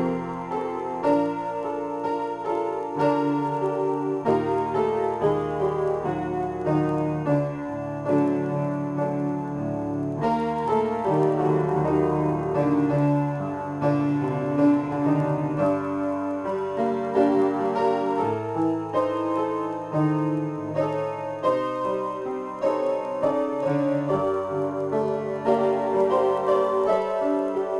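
Upright piano played in a continuous improvisation, with chords and a moving bass line sounding without a break.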